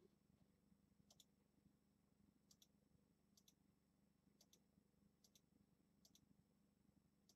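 Faint computer mouse clicks, about seven pairs of quick clicks spaced roughly a second apart, over a steady low hum.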